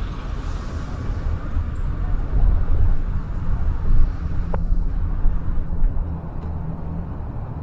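Low, uneven rumble of a car driving along a city street: engine and road noise from the car's own running, with traffic around it.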